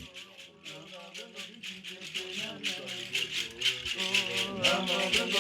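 Ceremonial rattles shaken in a fast, steady rhythm under Bwiti ritual chanting, with the voices growing louder about four seconds in.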